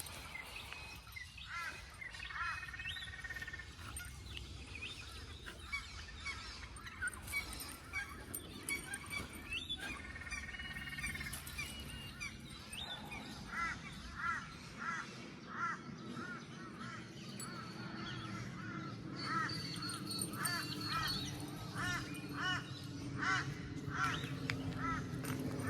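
Birds calling. The calls come singly at first, then as a steady run of short, repeated calls in the second half.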